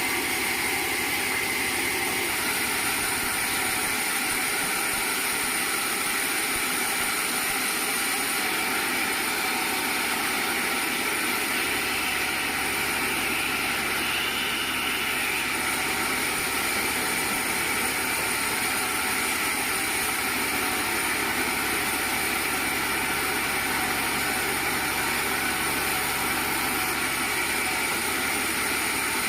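Sawmill machinery running steadily: a continuous mechanical drone with a steady high whine and no change in load.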